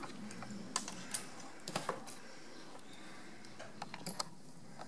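Small sharp metal clicks and taps, irregular and in two short clusters, as pliers and small parts are handled while a brake master cylinder is being reassembled by hand.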